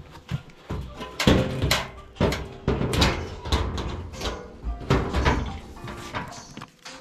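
Irregular knocks, clanks and rattles of a dryer's sheet-metal front panel being worked back onto its locating pins.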